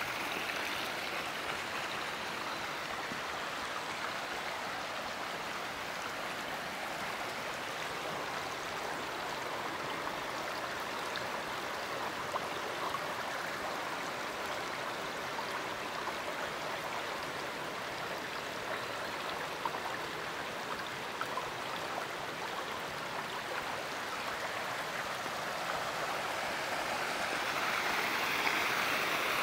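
Mountain stream running over rocks: a steady rush of water that grows a little louder near the end.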